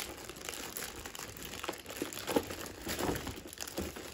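Product packaging being handled and crinkled during an unboxing: irregular rustling and crinkling with scattered small clicks.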